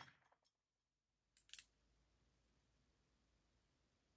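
Near silence between revolver shots. The echo of a shot fades at the very start, and a faint double click comes about a second and a half in.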